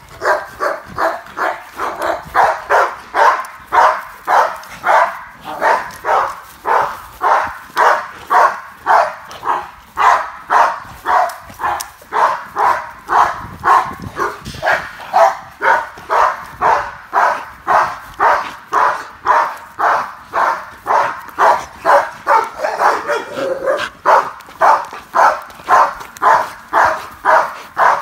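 A dog barking over and over at a steady pace, about two barks a second, without a break. The dog is barking at another dog.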